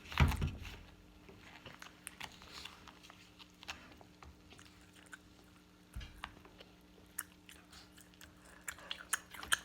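Close-up eating sounds: biting and chewing chicken, with scattered wet clicks and small crunches, and a low thud about six seconds in.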